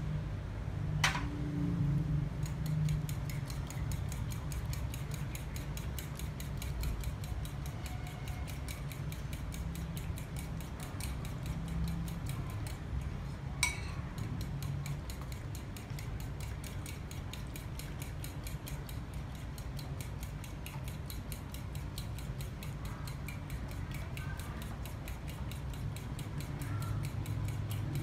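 Spoon beating batter in a small bowl: a rapid, even clinking of the spoon against the bowl, with a couple of sharper knocks.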